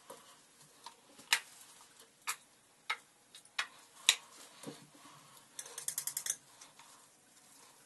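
Sharp plastic clicks and taps from hair clips and dyeing tools being handled, coming roughly every half second, then a quick rattling run of clicks around six seconds in.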